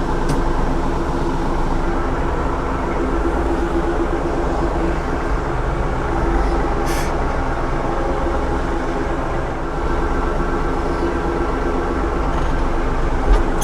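Tractor engine running steadily at a constant speed while it works the hydraulic forks to lift a load, with a couple of brief clicks.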